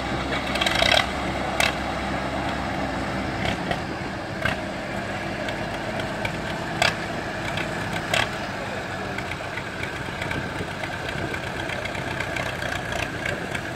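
Tractor diesel engines running steadily, with the engine tones thinning out about nine seconds in. A few sharp clicks or knocks cut through, the loudest about a second in.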